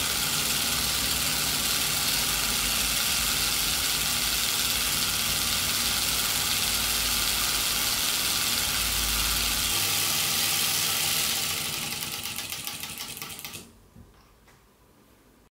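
Miniature four-coil solenoid boxer engine running fast, at about 9,000 rpm, with a dense, steady mechanical buzz from its coils and crank. About eleven seconds in it winds down, the buzz breaking into separate, slowing ticks, and it stops near the end.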